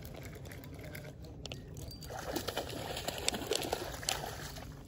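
A hooked fish splashing and thrashing at the water's surface as it is pulled in to the bank, getting busier from about two seconds in, with scattered small clicks.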